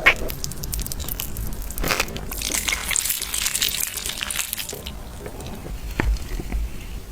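Chocolate being bitten and crunched close to the microphone, with crackling and sharp snaps, the loudest right at the start, about two seconds in and about six seconds in.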